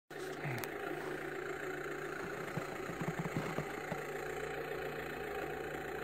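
Kyosho Blizzard RC snowcat's electric motor and drivetrain running steadily as it drives its tracks through snow, with a few short knocks around the middle.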